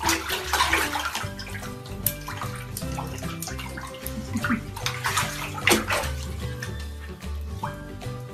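Husky puppy scrabbling and sliding on the bottom of a bathtub while tugging at a toy, in noisy bursts during the first second, once near two seconds and again around five to six seconds. Background music plays throughout.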